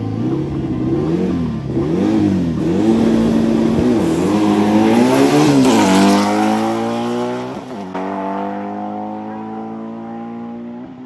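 Drag-race car engines revved up and down at the starting line, then launching at full throttle about six seconds in and accelerating away. The pitch climbs through the gears, with a shift a second and a half later and another near the end, and the sound fades with distance.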